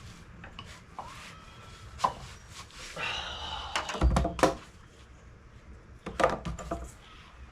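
Metal knocks and clinks from hand tools and hinge parts as a car door hinge is being taken apart, with a heavier thud about four seconds in and another run of knocks a couple of seconds later.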